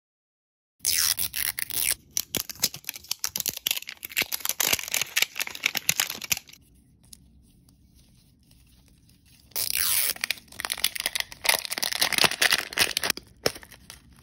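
Crinkly plastic wrapping being torn and peeled off a toy capsule ball, close up, in two long stretches of crackling with a pause of about three seconds between them.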